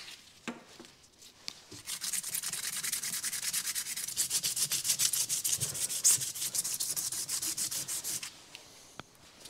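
An orange abrasive pad rubbed by hand along a painted car axle halfshaft, scuffing its surface. The quick back-and-forth strokes run several a second, starting about two seconds in and stopping a little after eight seconds.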